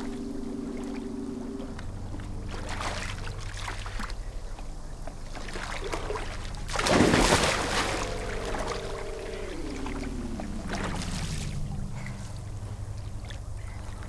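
Low sustained drone of a film score under muffled underwater water sounds. About seven seconds in comes a loud rush of water and bubbles as a swimmer plunges into the pool, followed by a slowly falling run of tones.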